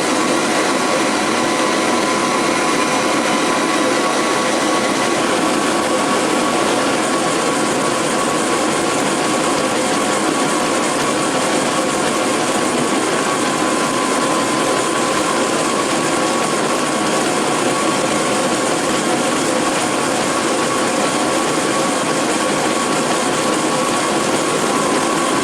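CNC laser engraver running while it burns into acrylic: a steady mechanical whir with a few faint steady tones, some of which drop out about five seconds in.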